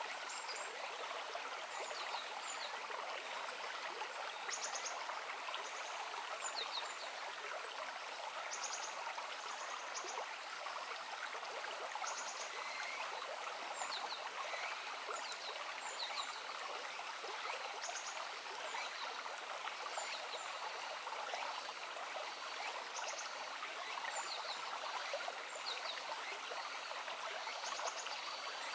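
Murmuring brook running steadily, with short high chirps repeating about once a second throughout.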